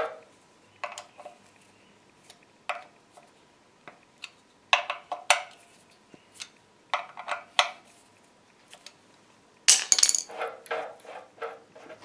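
Steel lathe parts being handled by hand: scattered light metallic clinks and knocks, with a louder cluster of clanks near the end.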